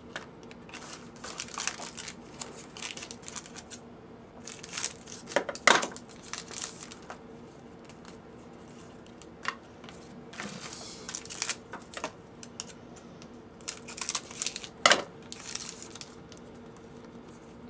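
Foil wrappers of SPX hockey card packs crinkling and tearing as the packs are ripped open, in several bursts. The loudest, sharpest snaps come about six seconds in and again about fifteen seconds in.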